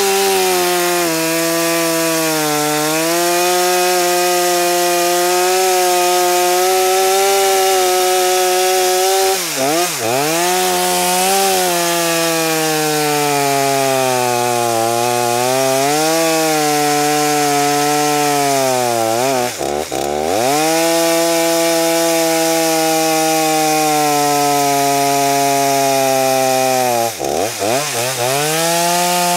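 Stihl MS 250 45 cc two-stroke chainsaw running under load as it cuts through an oak trunk, its engine note wavering as the bar works into the wood. Three times the revs dip briefly and pick up again. The chain is dull and near the end of its life, so the saw does not feed through the wood on its own weight.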